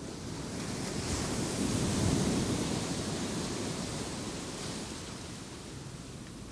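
Sea waves: a rushing surf that swells to a peak about two seconds in and then slowly draws back.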